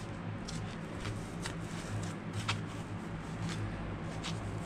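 Faint rustling and light taps of hands handling an LED grow light in its foam packaging, over a steady low hum.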